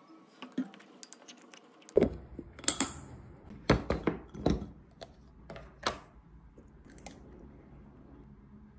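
Plastic food container with a snap-lock lid being handled on a countertop: a series of sharp clicks and knocks as the lid clips are worked and the container is set down, the loudest about two, four and six seconds in.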